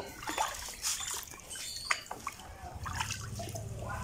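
Water splashing and sloshing in a plastic tub as raw duck carcasses are moved and lifted out of it, with scattered small splashes and drips.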